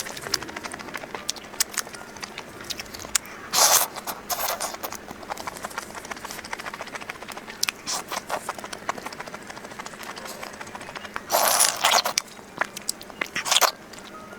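Close-miked eating of instant noodles: a run of small wet mouth clicks and chewing, broken by a few short, loud slurps, the longest about twelve seconds in.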